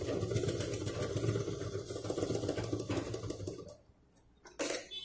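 Domestic sewing machine running steadily, stitching a reinforcing seam through the layered fabric of a pouch, then stopping about three and a half seconds in. A short, sharp clatter follows near the end.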